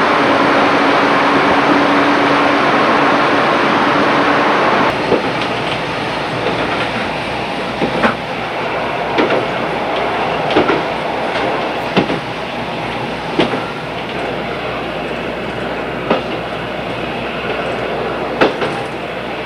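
Train running on jointed track: a steady rumble, with sharp clicks of the wheels striking rail joints every second or two. The first five seconds are a louder, steady rushing noise without the clicks.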